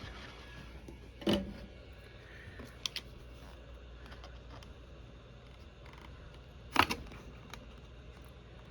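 Sharp plastic clicks and taps over a faint low hum, as plastic opening cards are worked into the adhesive seam around a 2012 iMac's display: a loud click about a second in, two small ticks near three seconds, and another loud click near seven seconds.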